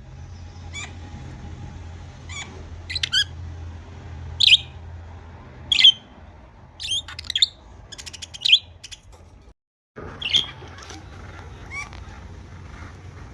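Budgerigars giving short chirps and harsher squawks, scattered through the clip, with a few louder squawks and a quick rattling trill among them. A low steady hum runs underneath, and all sound cuts out for about half a second midway.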